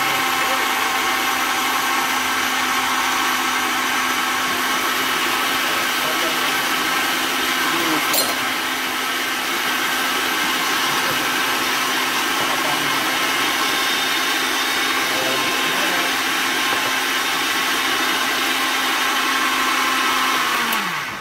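Electric countertop blender running steadily as it purées a yogurt, berry and ice shake, with one brief click about eight seconds in. Near the end the motor is switched off and winds down to a stop.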